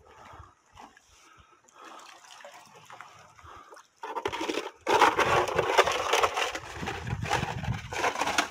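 Water splashing and sloshing as someone wades through shallow water, faint at first and much louder from about four seconds in.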